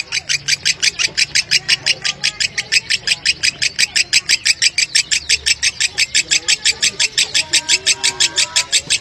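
Lovebird singing a long, unbroken ngekek chatter in the tight-spaced 'konslet' style: shrill, evenly spaced notes at about seven a second.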